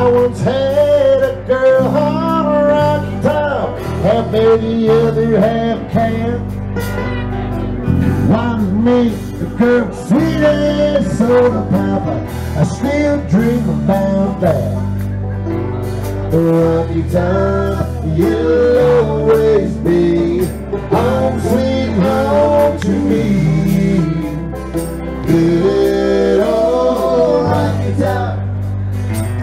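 Southern roots rock band music: guitar and bass playing steady changing bass notes under a bending melodic lead line.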